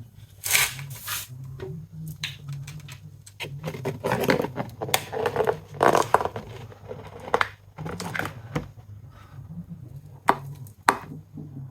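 Irregular handling noises at the compressor's oil drain: scrapes, clicks and knocks, thickest in the middle, over a faint low steady hum.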